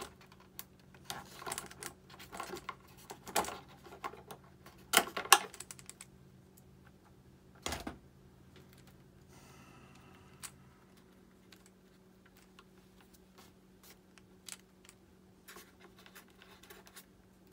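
Irregular clicks, taps and light scratches of small plastic and metal parts being handled and worked by hand on an RC jet's retractable landing gear. The clicks are densest and loudest in the first half, with one heavier knock near the middle. A faint steady hum stops about two-thirds of the way through.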